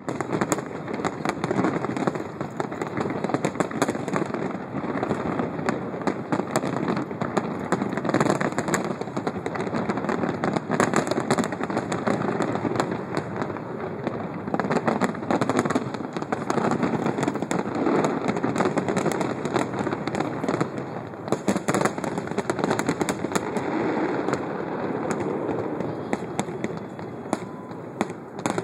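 Aerial fireworks shells bursting in rapid, unbroken succession: a dense, continuous barrage of booms and crackles, easing slightly near the end.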